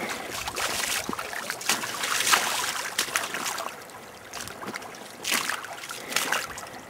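Feet splashing and sloshing through a shallow, stony stream in quick, irregular steps, over the running water of the stream. The splashing is busiest in the first half, eases off, then picks up again about five seconds in.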